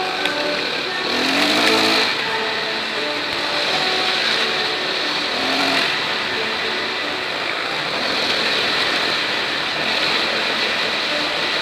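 Dirt bike's engine running under a steady rush of wind and road noise, heard from a camera mounted on the moving bike, with the engine note rising about a second in.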